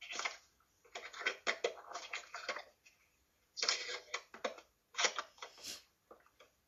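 Irregular clatter and rustling from kitchen handling, heard over a video call through a laptop speaker, chopped into short bursts with dead silence between them.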